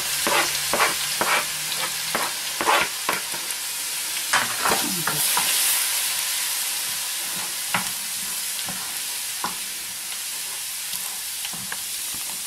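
Minced garlic and small hot chili peppers sizzling in hot vegetable oil in a frying pan, stirred with a wooden spatula. The spatula knocks and scrapes against the pan often in the first half and only now and then later.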